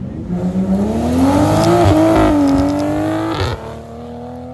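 Sports car engine accelerating hard as it pulls away, its note climbing for about three seconds. About three and a half seconds in the revs cut suddenly, leaving a lower, steadier engine note.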